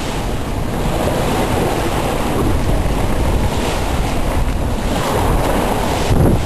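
Wind buffeting the microphone over the steady rush of water along the hull of an Island Packet 35 sailing hard on a close reach in about 20 knots of breeze. The noise swells briefly near the end.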